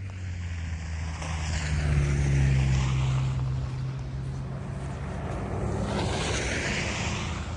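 Vehicles passing on a snowy street: a low engine hum that rises a little about two seconds in, and tyre hiss that swells twice, about a second in and again around six seconds.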